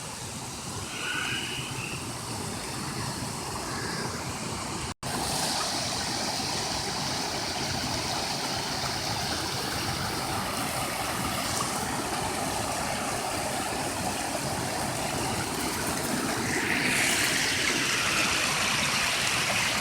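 Small waterfall and creek water rushing steadily, cut off for an instant about five seconds in, and a little louder near the end.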